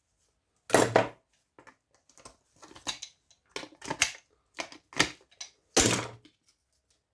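Irregular knocks and clicks of hard plastic and metal parts being handled while an old computer is stripped for scrap, with a louder knock about a second in and again near the end.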